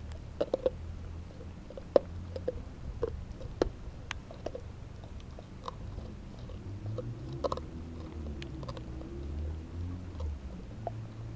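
Puppy chewing and crunching a raw meaty bone: irregular wet cracks and clicks, the sharpest about two seconds in and thinning out after about five seconds, with a low hum behind from about six seconds.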